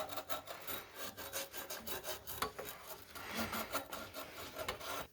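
A hand tool scraping and rasping the rough, burred edge off the cut end of a water pipe in quick, irregular strokes.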